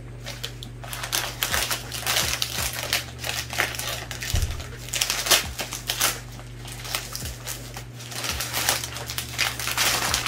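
Kraft paper plant sleeves crinkling and rustling as they are handled, in dense irregular crackles.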